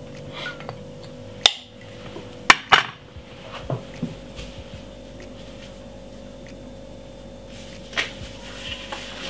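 Sharp clinks and knocks of a glass bottle and other kitchen items being handled and set down on a worktop: one about a second and a half in, two close together a second later, and another near the end. A faint steady hum runs underneath.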